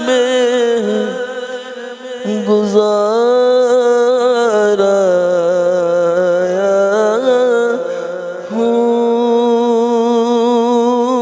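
A man singing a naat in Urdu, drawing out long held notes with a wavering vibrato. The voice drops away briefly about two seconds in and again about eight seconds in before taking up the line again.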